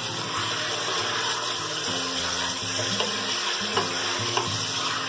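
Chicken pieces sizzling steadily in hot ghee in a steel pot as they are stirred with a wooden spatula, with a few light knocks of the spatula against the pot.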